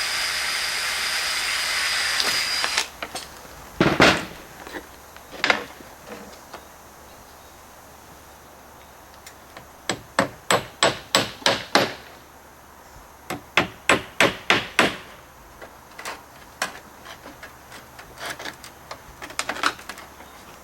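Hammer nailing a piece of wood blocking onto the roof deck: a few single blows, then two quick runs of strikes, about eight and then about six, with lighter scattered taps near the end. It opens with about three seconds of steady noise.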